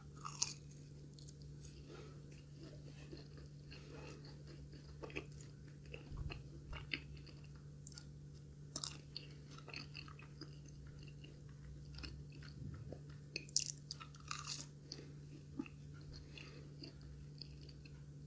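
Close-up chewing and biting of a breaded, deep-fried potato croquette: faint, scattered crunches and wet mouth sounds, a few louder crackles of the crisp crust, over a steady low hum.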